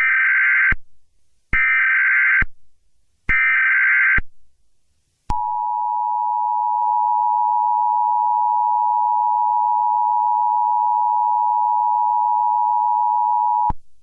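Emergency Alert System tones: three short bursts of SAME header data, each under a second and about a second and a half apart, then the long steady two-tone attention signal, which holds for about eight seconds and cuts off near the end.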